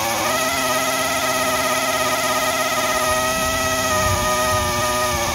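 Hand-held drill running steadily under load, turning a piloted reamer in an axle bolt hole of a Cessna 140 landing gear leg to open it up for a solid axle. A steady whine that dips and picks up again just after the start.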